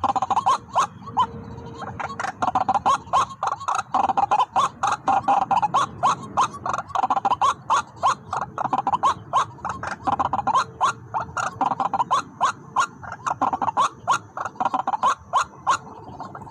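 White-breasted waterhen calling: a loud, fast run of harsh repeated notes, about four a second, without a break.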